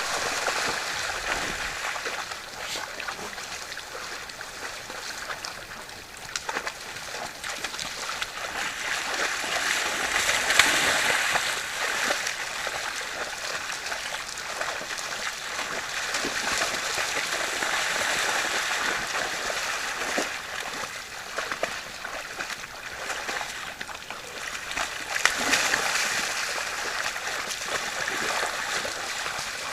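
Rushing water, an even hiss that swells louder around ten seconds in and again near the end, with a few faint clicks.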